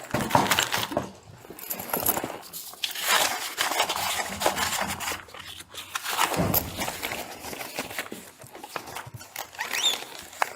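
Close rustling and crinkling handling noise, with scattered scrapes and clicks, picked up by a body-worn camera's microphone.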